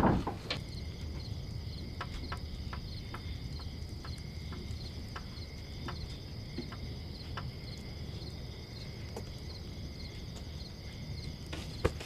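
Night ambience of crickets chirping steadily, with scattered sharp crackles from a small wood fire under a cooking pot. A single knock right at the start.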